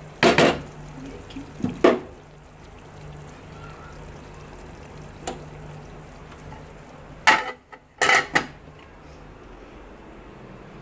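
Ladle clanking against a steel cooking pot of thick taro-root curry while it is stirred: sharp metallic knocks near the start and around two seconds in, a faint one mid-way, and a louder cluster of three clanks about seven to eight seconds in.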